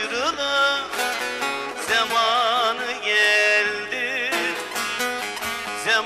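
Man singing a Turkish folk song into a microphone, his voice wavering in a wide vibrato, over a plucked bağlama accompaniment.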